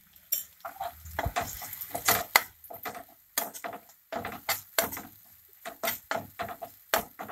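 Metal slotted spatula scraping and knocking against a non-stick frying pan while stirring frying onions, tomato purée and spices, in irregular strokes about two or three a second, starting a moment in.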